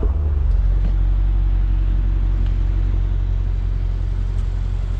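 Mercedes-AMG GT 63 S 4-door's 4.0-litre twin-turbo V8 idling steadily, a deep, even low rumble from the exhaust.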